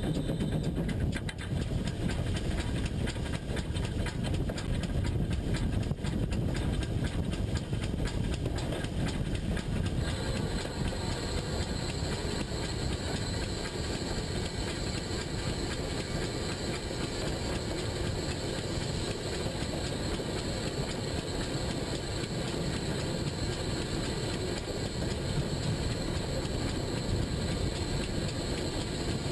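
Pannier tank steam locomotive running along the line, heard from the front of the engine: a steady rumble of wheels on the rails with some hiss. A higher hiss joins about ten seconds in.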